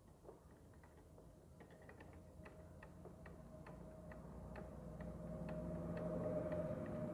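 Ratchet wrench clicking, a few clicks a second, as the bolts of a motorcycle clutch pressure plate are turned during reassembly. A steady hum grows louder in the second half.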